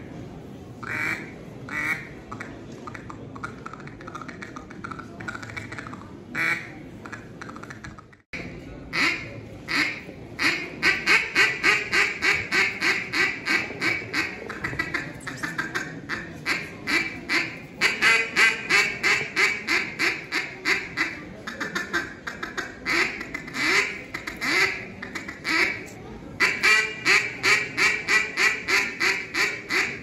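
Hand-blown mallard duck call imitating a hen's quacks: spaced single quacks, then after a brief break about eight seconds in, long, fast runs of quacks.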